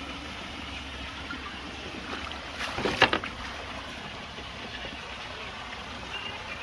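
Steady rush of pool water, with a short, loud burst of sharp sounds about three seconds in.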